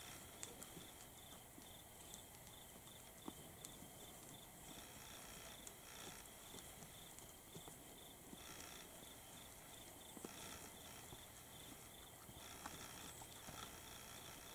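Near silence: faint scattered clicks of a whitetail buck feeding and stepping on dry grass and gravel, over a quiet hiss.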